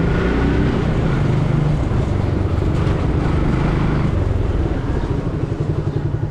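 Motorcycle engine running while riding, with a rushing haze of road and wind noise; near the end the engine settles into an even pulsing beat as it slows.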